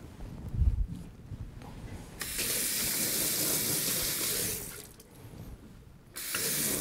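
Kitchen tap running for about two seconds, then turned on again near the end: water running over the spatula to wet it before the next cut.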